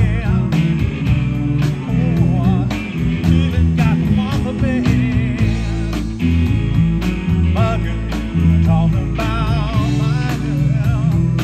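Live rock band playing through a PA system: electric guitars, bass and a drum kit keeping a steady beat, with a singer's voice over the top.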